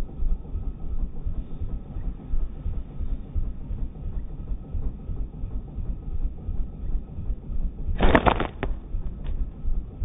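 Slingshot released once about eight seconds in: a sharp snap of the rubber bands. Under it, a steady low rumble of wind buffeting the microphone.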